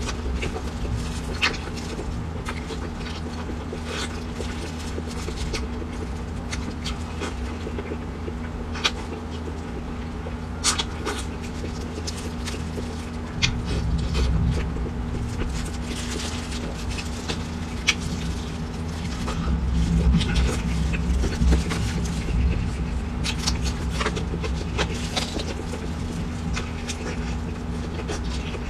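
Close-up chewing of braised pork belly and blistered green peppers: wet, sticky mouth sounds with frequent sharp smacks and clicks, busiest about halfway through and again about two-thirds through, over a steady low hum.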